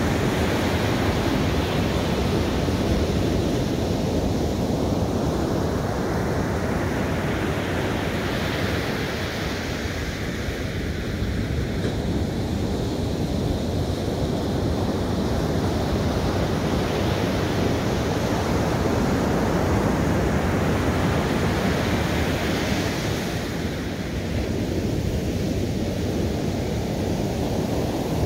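Ocean surf breaking and washing up a sandy beach: a continuous rush of waves that swells and eases as each set breaks and runs up the sand.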